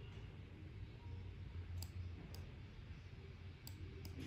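A few scattered key presses on a laptop keyboard: about four sharp, separate clicks over a faint steady low hum.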